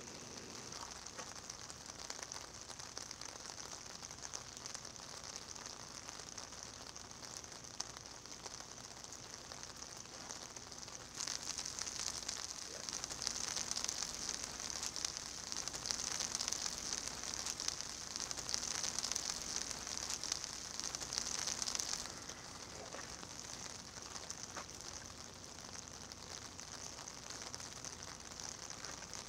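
Freezing rain falling in a steady fine patter, louder for about ten seconds in the middle.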